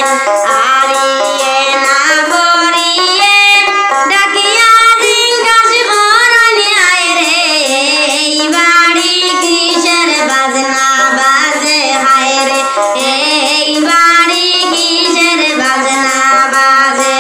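A woman singing a Sylheti wedding song (biyar gaan), her melody sliding and ornamented, over instrumental accompaniment.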